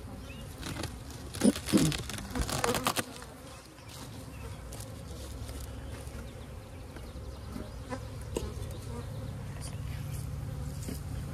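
Honeybee colony buzzing from an opened hive: a steady hum that grows a little stronger in the second half. A few sharp knocks and clatters about one to three seconds in.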